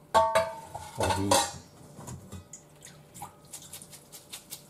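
Stainless steel mixing bowl clanking against the sink and mesh strainer, twice in the first second and a half, ringing briefly each time. Then a run of light quick drips as the strainer of noodles is lifted out to drain.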